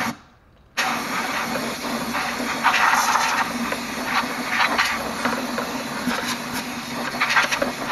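Compressed-air blow gun hissing as it blows dirt out of a car's empty air filter box: a brief blast, a short pause, then a long continuous blast from about a second in, rising and falling as the nozzle moves about.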